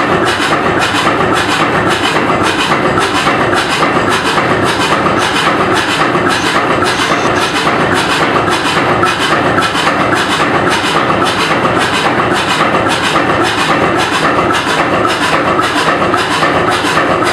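1925 two-cylinder, 40 hp Brons slow-running tugboat engine running steadily: a loud, even rhythmic clatter of firing beats and working valve gear, a few beats a second, heard in its engine room.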